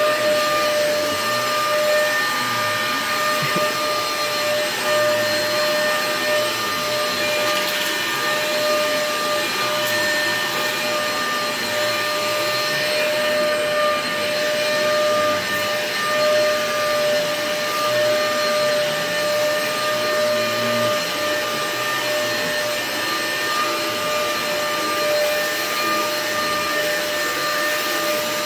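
Vacuum cleaner running steadily, a constant motor whine over a rushing air noise.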